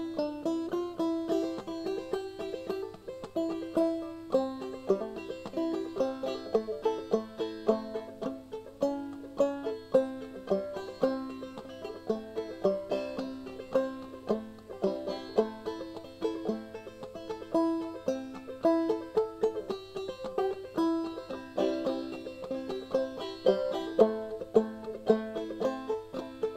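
Background music: a plucked string instrument playing quick runs of short notes over a steady beat.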